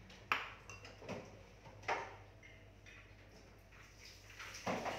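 A few sharp clinks and knocks of a bowl, spoon and other kitchenware being set down on a counter. Near the end a tap starts running.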